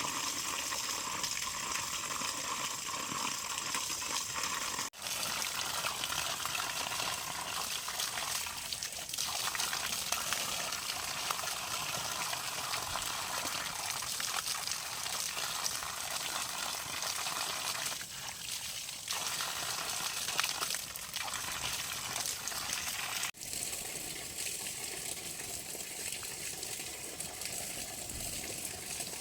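Steady rushing of running water, broken twice by abrupt cuts, about five seconds in and again near the twenty-three second mark.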